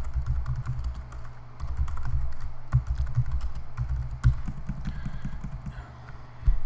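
Typing on a computer keyboard: irregular quick runs of key clicks with dull low thuds under them.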